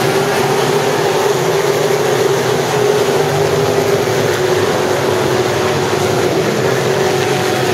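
A pack of sport modified dirt-track race cars' V8 engines running at speed around the oval, a steady, loud drone with one held engine note.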